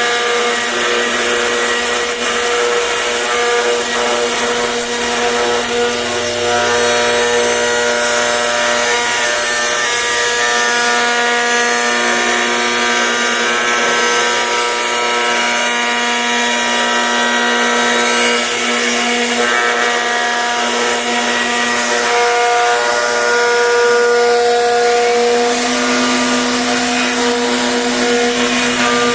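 CNC router spindle running steadily with a constant whine while its bit cuts wood with a rough grinding noise. The whine shifts in pitch slightly near the end.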